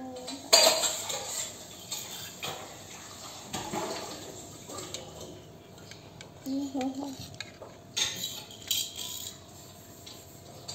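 A metal fork clinking and scraping against a dish as a toddler eats noodles, a few sharp clinks spread through, with short vocal sounds from the child.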